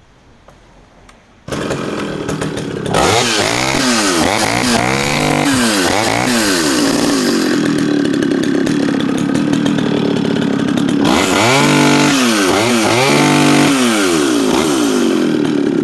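Echo CS-650EVL chainsaw's 65cc two-stroke engine starts about a second and a half in and idles briefly. It is then revved up and down repeatedly, with a stretch held at high revs, running strongly.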